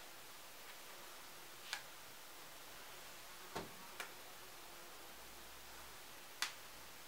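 Four faint, sharp clicks spread over several seconds against quiet room hiss, as an elastic hair tie is wound around a high ponytail and snaps against the hair and fingers.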